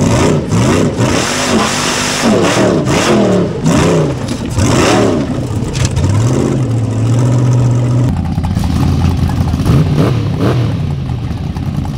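Formula Offroad buggy engine revving hard, its pitch swinging up and down about twice a second as the throttle is worked on a steep dirt climb, then held steady for a moment. About two-thirds of the way in the sound changes abruptly to an engine running more evenly, with a couple of short revs.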